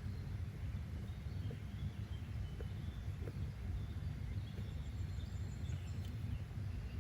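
Nature-sound background ambience: a steady low rumble with faint, scattered bird chirps over it.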